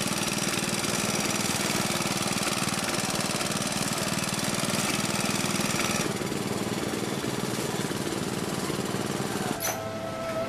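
Small petrol engine of a push-along wheeled grass cutter running steadily with a fast, even putter. About a second before the end it stops and a held, wavering music tone begins.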